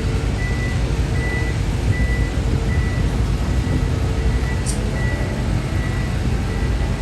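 Large forestry machine's diesel engine running with a steady low rumble, while a high electronic warning beeper sounds in short beeps about one and a half times a second.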